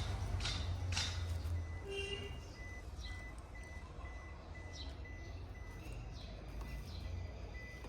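Car's electronic warning chime beeping steadily, about two and a half beeps a second, starting about two and a half seconds in. Before it, a low rumble with sharp ticks about twice a second fades away.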